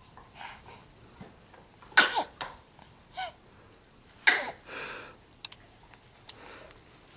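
A seven-week-old baby sneezing twice, two sharp sneezes a little over two seconds apart, with a short, small vocal sound between them.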